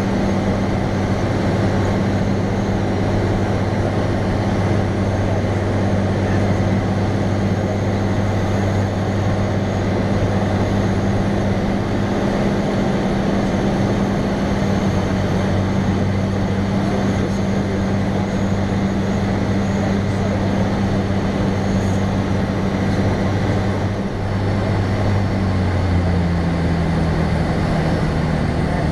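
A single-engine light airplane's engine and propeller droning at a steady pitch. About three seconds before the end the drone steps down to a lower pitch as the engine slows.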